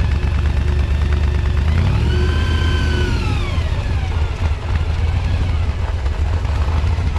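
A car engine running with a steady low rumble. About two seconds in, a whine rises and then falls in pitch over a second or so.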